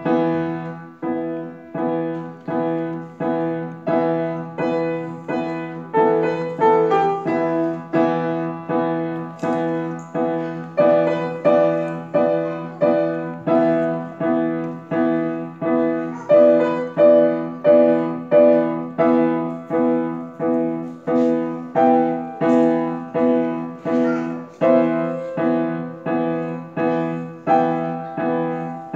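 Grand piano played solo: a melody over steady repeated chords, about one and a half strikes a second, with a low note sounding throughout.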